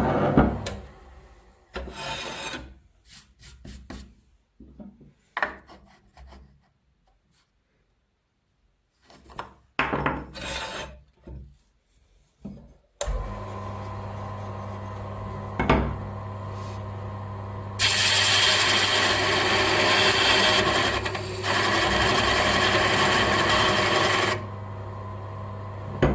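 Bench grinder motor humming, cutting off, then a few scattered knocks of handling. About halfway it starts again and runs with a steady hum, and for several seconds near the end a workpiece is pressed against the spinning sanding disc, giving a loud rasping sanding noise over the motor.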